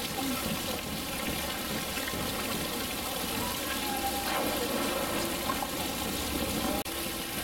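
Steady trickle and rush of running water in a polar bear pool, with faint visitor voices behind it. The sound drops out briefly near the end.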